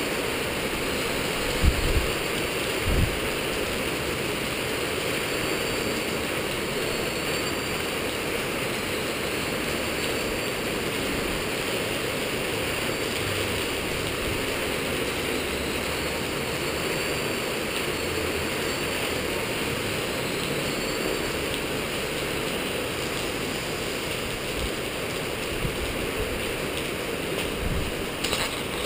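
Skyartec Wasp V3 electric RC helicopter in flight: a steady whirring rush from the rotor with a faint high motor whine that rises and falls. There are two low thumps about two and three seconds in, and a short clatter near the end as the helicopter comes down onto the tiled floor.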